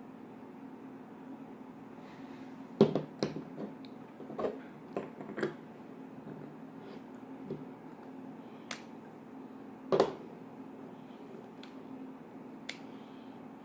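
Scattered sharp clicks and taps of small objects being handled, bunched together for a few seconds and then a couple of single louder knocks, over a steady low hum.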